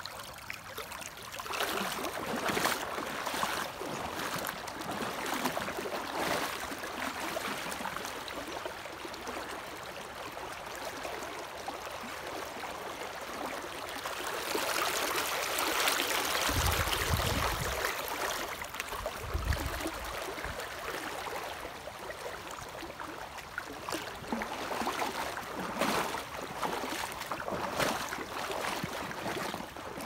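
Shallow river current rushing and splashing around wading boots as someone steps through it, swelling with the steps and loudest about halfway through. Two brief low rumbles come in the middle of the loudest stretch.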